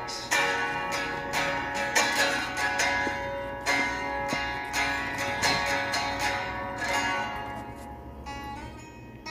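Country-music instrumental break with strummed guitar, fading out toward the end.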